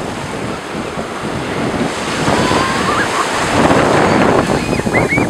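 Ocean surf breaking and washing in around the waders' legs, with wind buffeting the microphone; the wash grows louder from about two seconds in as a wave comes through.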